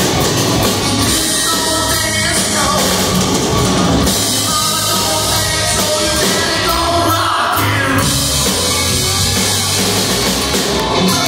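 A live hard rock band playing loud: distorted electric guitar over bass and a drum kit, with singing.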